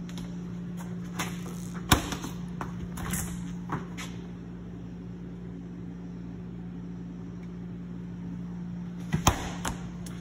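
A steady low hum runs throughout, with a few sharp metallic clicks and knocks in the first four seconds and a short cluster of knocks about nine seconds in, from the stainless steel door and cabinet of a Traulsen double door commercial refrigerator being handled.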